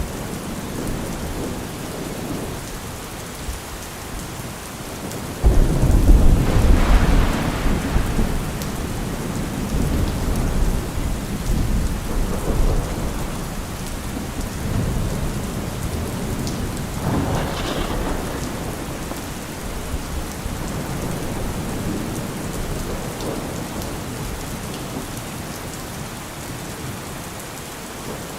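Steady heavy rain with thunder: a loud low rumble breaks in suddenly about five seconds in and dies away over a few seconds, and a second, weaker rumble comes about seventeen seconds in.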